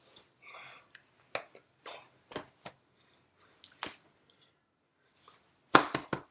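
Scattered sharp clicks and smacks from a person signing: lip and tongue noises with soft breaths, and hands striking each other or the chest. A quick cluster of louder smacks comes near the end.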